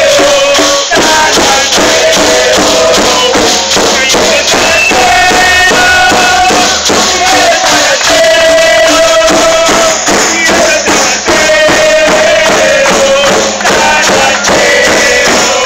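Loud crowd of protesters chanting in unison, the voices holding drawn-out notes, with percussion beating steadily along.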